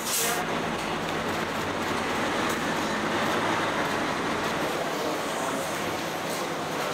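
A large coach bus's engine running steadily at the kerb, mixed with general traffic hum, with a short hiss right at the start.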